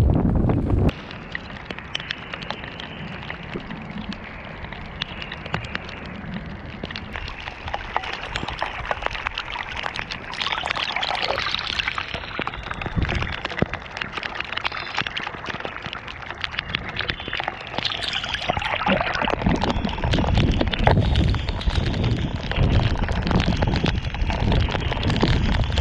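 Off-road inline skate tires rolling through mud and grit, a steady crackling, gritty noise full of tiny clicks and pops. Wind rumbles on the microphone in the first second and again through the last third.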